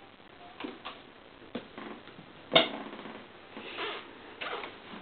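Scattered light knocks and rustles of handling close to the microphone, with one sharper knock about two and a half seconds in.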